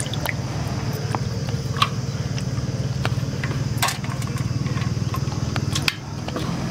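A steady low engine-like drone with a fine even pulse runs throughout, dipping briefly near the end. Over it come small scattered splashes and drips of water as slippery aloe vera gel pieces are worked and lifted by hand in a basin of water.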